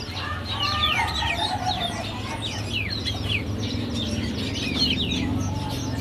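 Many small caged songbirds chirping and calling at once, a dense chorus of quick, high, downward-sliding notes, over a steady low hum.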